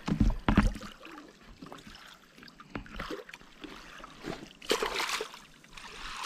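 Water splashing as a hooked spot-tail bass thrashes at the surface beside a wooden boat. A few heavy knocks come in the first second, and a louder splash comes about five seconds in.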